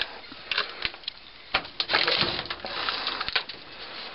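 Rustling with scattered knocks and scrapes: handling noise of a hand-held camera jostled against clothing while its holder moves about.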